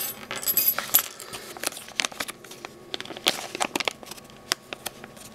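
Small gear items being handled and set down on a wooden tabletop: a scattered series of light clicks and taps, with a brief metallic clink near the start.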